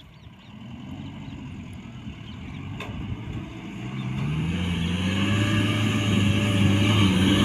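Diesel engine of a Mahindra pickup driving on the sand dune, growing steadily louder as the vehicle comes nearer. From about four seconds in, its note is strong and holds a steady pitch.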